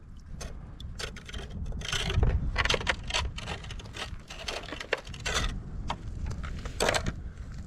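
Plastic iFish Pro tip-up being handled and lifted out of an ice-fishing hole: irregular scrapes, clicks and knocks of plastic against ice, over a low rumble.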